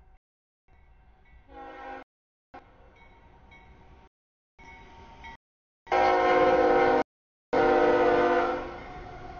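CSX freight diesel locomotive's air horn blowing for the grade crossing as the train approaches, faint at first and then loud in two long blasts in the second half, the last one fading near the end. The sound cuts out completely for short moments several times.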